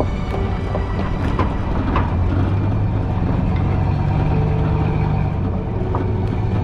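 Pickup truck engine running steadily as it tows a boat trailer slowly over sand, with a few sharp knocks and rattles from the hitch.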